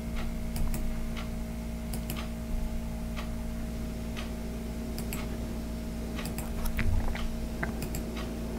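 Scattered light clicks of a computer mouse at irregular intervals, over a steady low electrical hum, with a soft low thump about seven seconds in.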